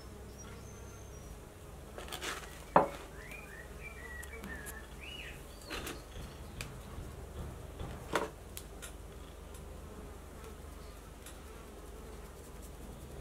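Steady insect buzzing, with a few sharp clicks and knocks, the loudest about three seconds in, and a short run of high chirps in the middle.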